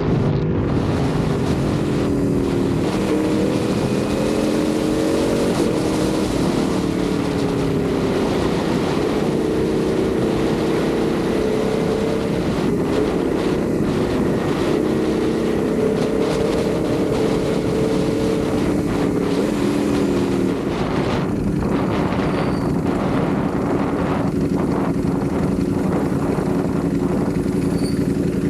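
Ducati Panigale V4 motorcycle's V4 engine running under way, its note rising and falling gently with throttle. About two-thirds of the way in the note drops and settles lower and steadier. Wind rushes over the microphone throughout.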